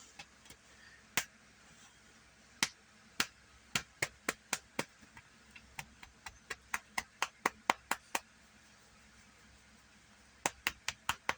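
A run of sharp, irregular clicks or taps, several in quick succession, then a short pause and a new cluster near the end.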